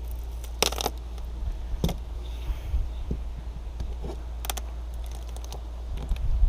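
Scattered small clicks, taps and light scrapes of hand work on the drilled hole in the fibreglass deck, over a steady low hum.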